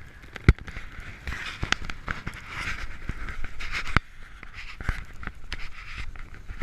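Footsteps crunching through deep snow in an uneven hiss, with a few sharp knocks, the loudest about half a second in and another about four seconds in.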